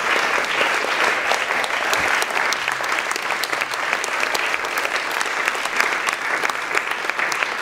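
A small audience applauding: many hands clapping steadily at the end of a live song.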